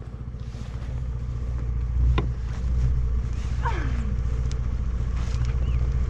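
Motor scooter engine idling steadily while the scooter lies on its side after a fall. There is a single knock about two seconds in, and a short sound falls in pitch a little past halfway.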